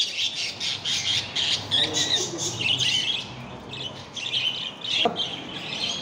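A cage full of budgerigars chattering and squawking in rapid, overlapping calls, with a short knock about five seconds in.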